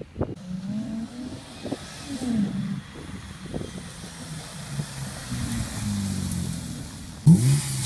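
Ford FG XR50 fitted with an aftermarket exhaust and cold air intake, accelerating past with its engine note rising and falling as it revs and shifts. Near the end a sudden, louder burst of revving with steeply climbing pitch.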